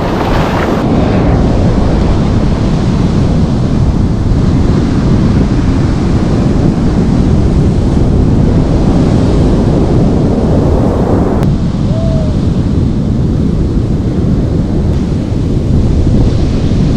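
Heavy sea surf breaking and washing up the sand in a steady loud roar, with wind rumbling on the microphone.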